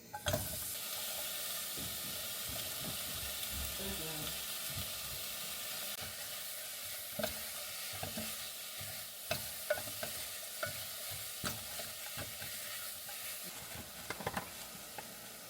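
Food sizzling in a hot oiled pan. The sizzle starts suddenly right at the start and stays steady. In the second half a cooking utensil clicks and scrapes against the pan several times, most often near the end.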